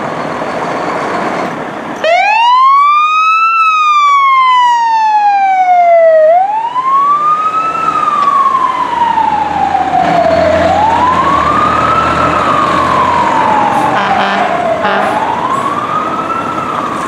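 Fire engine siren switched on about two seconds in, then wailing in repeated sweeps that climb quickly and fall more slowly, each cycle lasting about four seconds. A low vehicle rumble runs beneath it from about halfway through.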